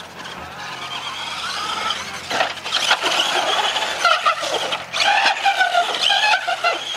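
Electric motor of a 2.2-scale RC monster truck whining as it is throttled up and down, the pitch sliding with speed. It gets louder about two seconds in, with a few short knocks as the truck rolls over on the dirt.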